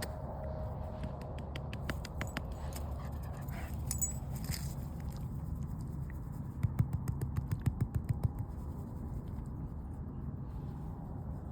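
Dogs moving about in undergrowth: light crackling steps through the first half, then a short run of quick low thumps a little past halfway.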